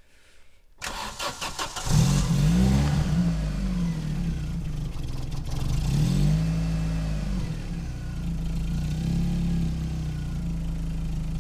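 Opel Calibra engine cranked by the starter for about a second, catching about two seconds in and revving up and down, revved once more a few seconds later, then settling into a steady idle. This is its first start on freshly filled engine oil.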